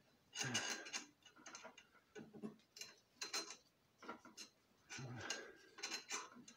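Irregular light clicks and clatter of small metal parts and tools being handled during compressor reassembly, as bolts are started into their threads by hand.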